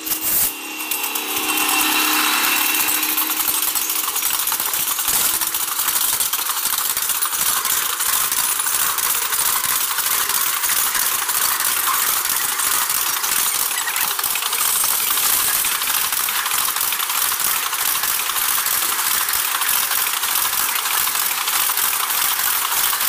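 Container freight train passing close by: a loud, steady metallic clatter and rattle of steel wheels running over the rails.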